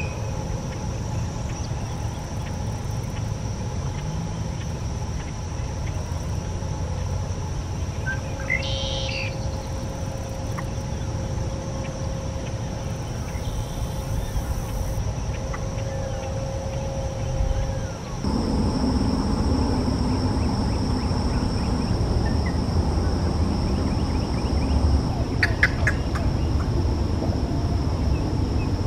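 Marsh ambience: a steady high insect drone over a low rumble, with a single bird call about nine seconds in and a quick run of chirps near the end. About two-thirds of the way through, the background changes abruptly and grows louder.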